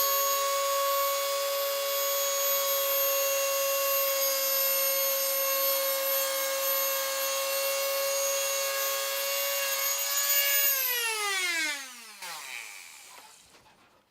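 Dremel rotary tool with the PL400 planer attachment running at a steady high whine while planing a chamfer off a wooden edge. About eleven seconds in it is switched off and winds down, the whine falling in pitch as it fades.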